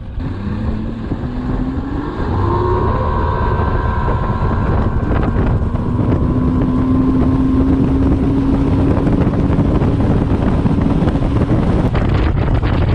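Bass boat's outboard motor throttling up, its pitch rising over the first few seconds, then running steady at speed. Wind buffets the microphone.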